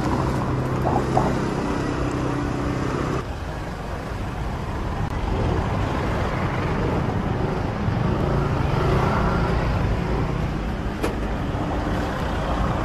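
Street traffic: motor vehicle engines running, with a steady engine hum that cuts off suddenly about three seconds in, then a continuing wash of road noise.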